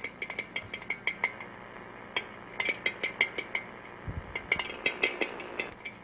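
Refrigerator compressor running with rapid, irregular metallic knocking inside its shell, with a slight ring to each strike. This is the sign of an internal suspension spring that has come loose and is hitting the compressor housing.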